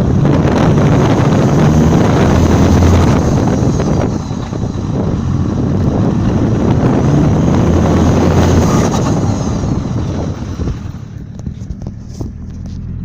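Volvo V70 2.5 TDI's turbocharged five-cylinder diesel pulling hard, with heavy wind noise on the microphone; the sound dips briefly about four seconds in and drops away near the end as the throttle is lifted, leaving a short rapid chatter of turbo flutter.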